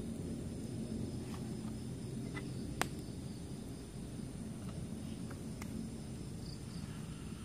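Campfire embers crackling, a handful of sharp pops with the loudest about three seconds in, over a low steady rumble and faint night insects chirping.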